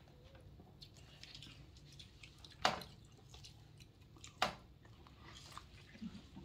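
Someone eating with a fork from a plastic container: the fork clicks sharply twice, less than two seconds apart, with faint chewing and small ticks in between.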